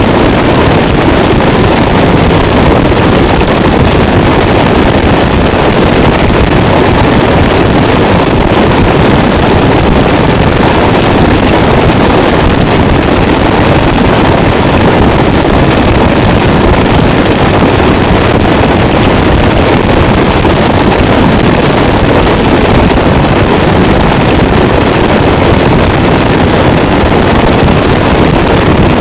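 Harsh noise wall: a loud, unchanging wall of dense distorted static, heaviest in the low-mids, with no separate strikes or changes.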